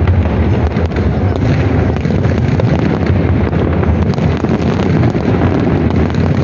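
Aerial firework shells bursting in a continuous dense barrage of deep booms and crackles, with no pauses between bursts.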